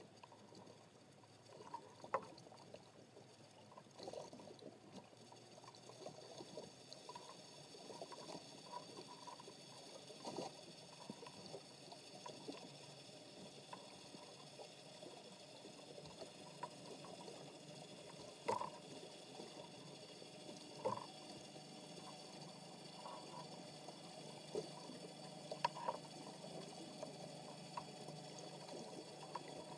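Underwater ambience picked up through a camera's waterproof housing on the sea bottom: a faint steady hiss with scattered small clicks and taps, and a few sharper ticks.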